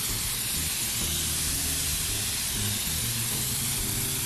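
Self-service car wash pressure wand spraying a high-pressure jet of water onto the wet concrete floor, a steady hiss.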